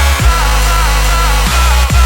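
Electronic dance music with heavy bass, a driving beat and gliding synth lines.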